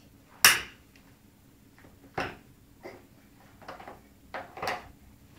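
Sharp knocks of a baby banging on a plastic high-chair tray. A loud knock about half a second in, another near two seconds, then a run of lighter taps and knocks near the end.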